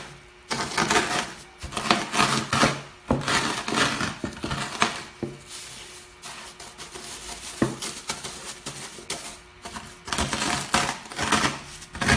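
Crispy chicharon (pork cracklings) being crushed in a plastic bag under a wooden rolling pin: irregular bursts of crunching and bag crinkling, with a few sharp knocks, quieter in the middle. The rinds are crisp and crush easily.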